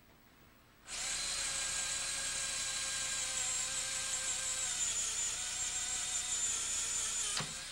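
Electric drill with a spot weld bit cutting a half-inch hole in a car door's sheet metal: a steady whine that starts about a second in and winds down and stops near the end.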